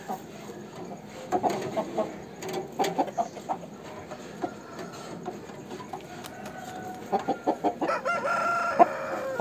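Aseel roosters clucking in short runs of notes, then one rooster crowing near the end.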